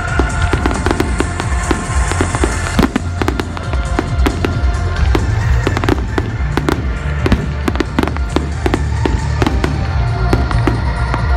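Fireworks display: aerial shells bursting in a rapid, continuous series of bangs and crackles, with music playing along.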